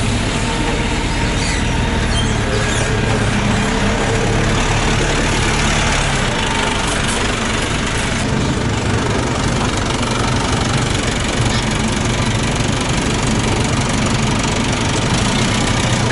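A heavy engine running steadily and loudly at close range while a truck is being unloaded, its note shifting slightly about six seconds in.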